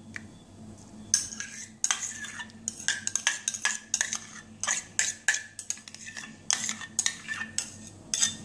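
Steel spoon clinking against a small stainless-steel bowl while stirring butter into hot water: a run of sharp metallic clinks, about two or three a second, each with a brief ring.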